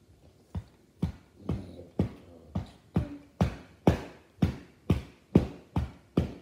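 A steady beat of sharp thumps, about two a second, starting about half a second in and speeding up slightly toward the end.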